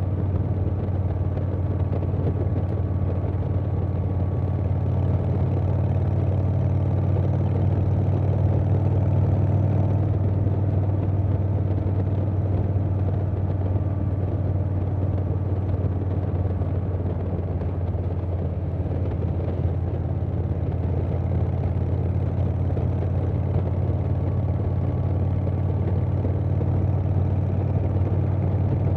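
Harley-Davidson Softail Standard's Milwaukee-Eight V-twin running through a Vance & Hines Big Radius 2-into-2 exhaust, holding a steady low exhaust note at an even cruising speed.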